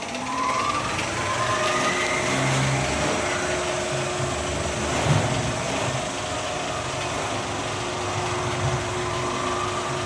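35mm film projector and platter system starting up: the motors whir up in pitch over the first couple of seconds, then run steadily.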